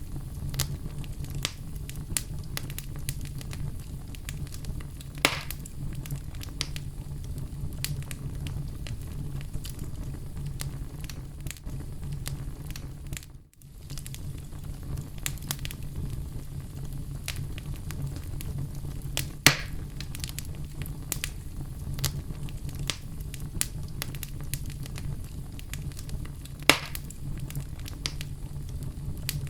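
Oak logs burning in a fireplace: a steady low rumble of flames with constant small crackles and three louder pops, about 5, 19 and 27 seconds in. The sound dips briefly and comes back about halfway through.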